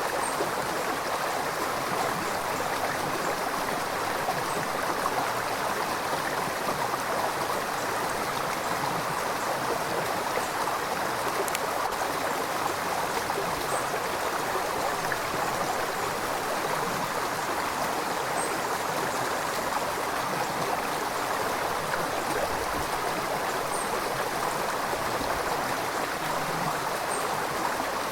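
River water flowing over rocks: a steady, even rushing with gurgling.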